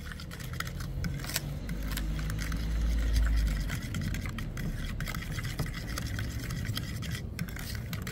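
Ricotta batter being stirred in a bowl as flour is worked in, with the utensil scraping and clicking irregularly against the bowl over a low rumble.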